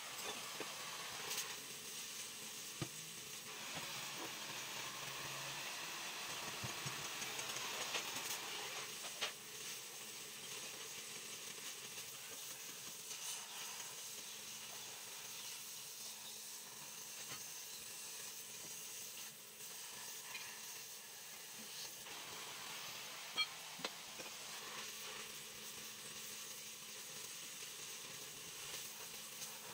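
Oxy-fuel cutting torch hissing steadily as its flame cuts through a steel disc, with a few sharp clicks.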